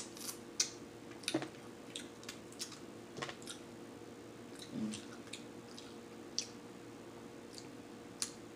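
Close-up eating sounds of snow crab legs: scattered sharp clicks and wet squishes as the shell is picked apart by hand and the meat is chewed, over a faint steady hum.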